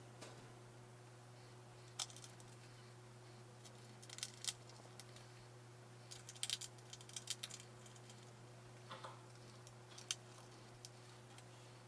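Scattered small clicks and taps of a screwdriver and screws being worked into a laptop's plastic bottom cover, with a dense run of clicks in the middle, over a low steady hum.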